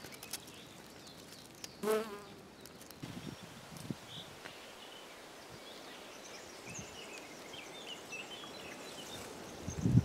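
A bee buzzing in short spells around spring flowers, with faint bird chirps in the background.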